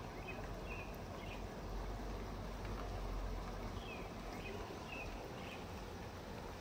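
A small bird chirping outside: two short runs of quick, high, falling chirps, one near the start and one about four seconds in. Under them is a steady outdoor hiss, with a low rumble in the middle.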